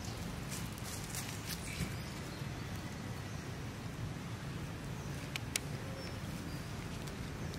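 Steady low outdoor background noise, with two short sharp clicks close together about five and a half seconds in.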